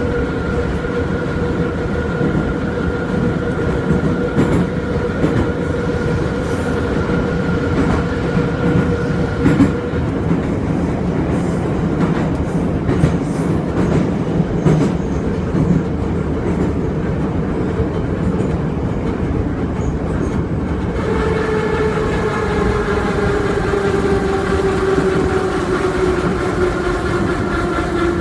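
Metro train running, its wheels clacking over rail joints against a steady rumble and a constant whine. About two-thirds of the way in, a whine of several tones sets in and slowly falls in pitch.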